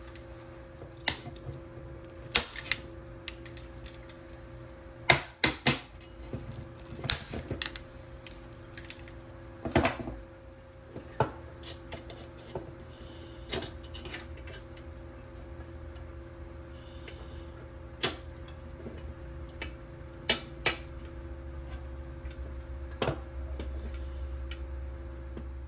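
Irregular sharp clicks, taps and knocks of small hard parts being handled and set down, with a cluster of louder knocks about five to seven seconds in and another near ten seconds, over a steady low hum.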